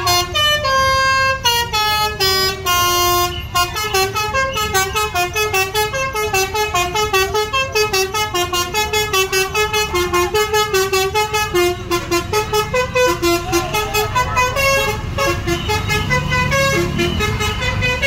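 Tour bus's 'telolet basuri' melodic horn playing a tune: a few longer notes at first, then a run of quick short notes, several a second, stepping up and down in pitch. The bus's engine rumbles low underneath.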